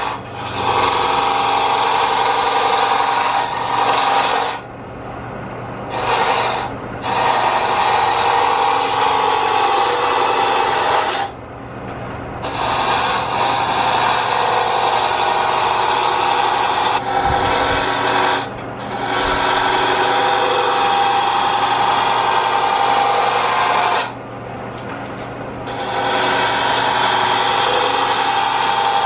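Roughing gouge cutting a spinning square wooden blank down to a round cylinder on a Jet wood lathe: a loud, steady shaving noise over the lathe's motor hum. The cut stops briefly about five times as the tool comes off the wood, leaving only the lathe running.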